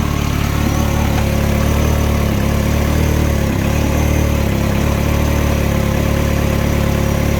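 Mini Cooper petrol engine idling steadily and evenly, its cylinder-1 misfire cured by a replacement ignition coil; the owner still judges it to need an adaptation.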